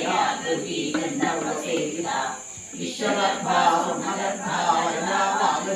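Several voices chanting Sanskrit devotional hymns together in a steady recitation, with short breaks between phrases. A steady high hiss runs underneath.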